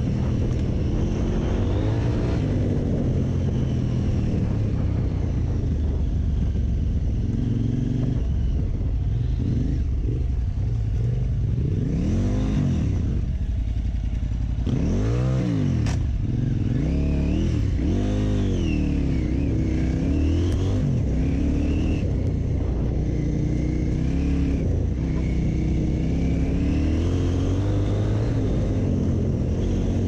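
KTM 950 Super Enduro R's V-twin engine pulling hard on a dirt trail, its revs rising and falling with throttle and gear changes. Around the middle it slows almost to a walk, the revs dropping and being blipped up and down in several sweeps, then it accelerates away again.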